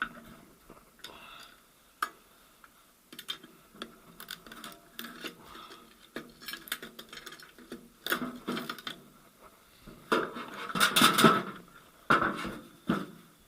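Metal parts of a VAZ 2108–2115 manual gearbox clinking and clattering as they are handled and turned over, with scattered light clicks and a louder, denser clatter about ten to eleven seconds in.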